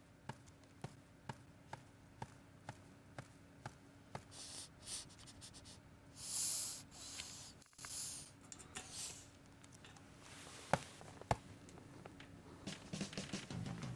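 Hand-made foley sounds: light taps at an even pace of about two a second, then three short rustling, brushing noises, then two sharp knocks a little past the middle.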